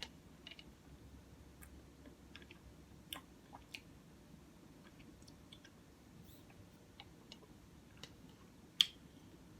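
Close-miked chewing and wet mouth clicks from eating a bacon, egg and cheese croissant sandwich. The clicks are soft and scattered, with one sharper, louder click near the end.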